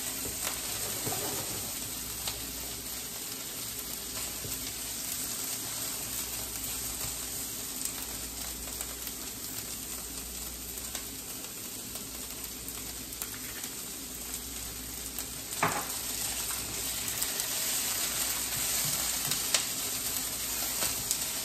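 Broccoli and red peppers sizzling steadily in hot olive oil in a frying pan, stirred with a spatula, with a few light taps and one sharper clack against the pan about three-quarters of the way through.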